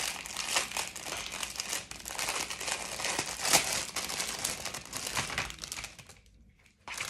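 Crinkly wrapping being handled and crumpled: a dense, irregular crackle that stops about six seconds in, followed by one short burst of crinkling near the end.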